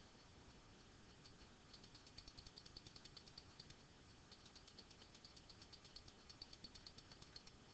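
Faint, rapid clicking of a computer mouse, several clicks a second, starting about a second and a half in as the text size is stepped up.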